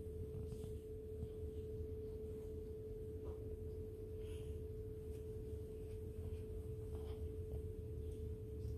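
A steady single-pitched hum, with a low rumble beneath it and a few faint soft ticks.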